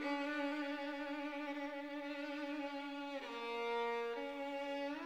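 Background music: a violin playing long, held notes with vibrato. The melody steps down about three seconds in and climbs back near the end.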